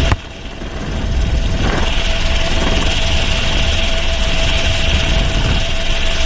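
Wind rush and propeller-engine noise of a small jump plane with its door open in flight, steady and loud, with a thin steady whistling tone running through it. The noise drops abruptly just after the start and builds back up over a second or so.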